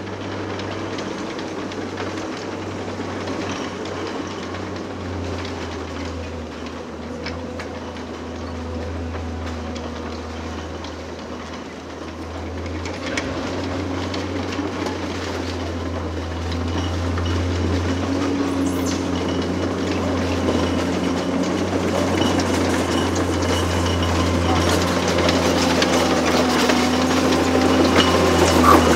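Heavy diesel construction machinery running steadily with a low engine hum, getting louder toward the end, with a few light clanks.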